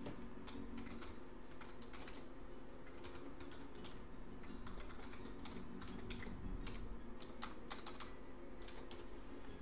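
Typing on a computer keyboard: irregular runs of quick key clicks over a steady low hum.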